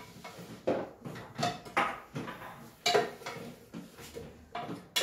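Wooden spoon stirring a sauté of onion, bell pepper and tomato in oil in an aluminium pressure cooker pot, with irregular scrapes and sharp knocks of spoon against metal, several clatters a second apart.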